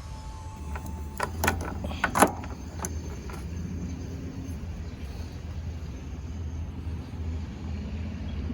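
A few sharp metallic clicks and knocks from hand tools and the spark plug socket being handled, the loudest about two seconds in, over a steady low rumble.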